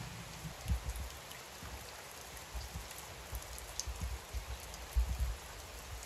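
Steady rain falling on forest leaves and foliage, with fine scattered drop ticks. A few low rumbling thuds stand out, the loudest about five seconds in.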